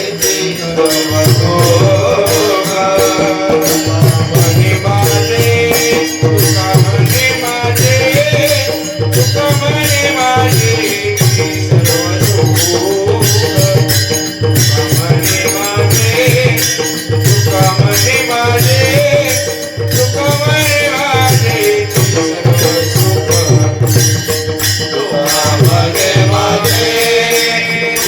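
Marathi Varkari devotional music: a melodic vocal line over a steady rhythm of deep mridang (pakhawaj) drum strokes and dense metallic jingling percussion.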